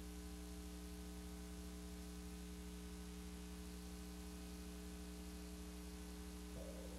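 Steady low electrical hum with faint hiss from a VHS tape transfer, with no programme sound.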